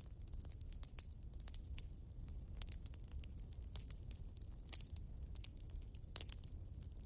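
Wood fire burning in a fireplace, crackling: irregular sharp pops and snaps, several a second, over a steady low rumble of the flames.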